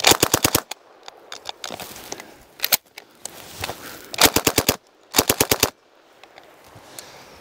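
Thompson submachine gun firing .45 ACP in short full-auto bursts at a slow staccato, about ten shots a second. There are three bursts of five to seven shots and one brief burst of two or three shots.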